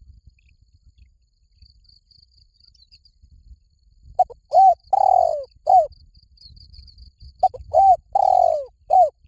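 Spotted dove cooing: two phrases about three seconds apart, starting about four seconds in. Each phrase has a short note, a hooked note, a long note that falls at its end, then a short closing note.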